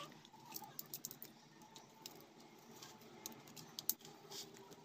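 Faint, scattered small clicks and scrapes of pliers and a blade working on the lead wires and tape of a wall fan's stator coil, with a few sharper clicks near the end.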